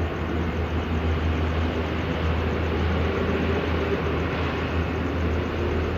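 Steady drone of toll-road traffic: a continuous low rumble and hiss of passing vehicles, with no single event standing out.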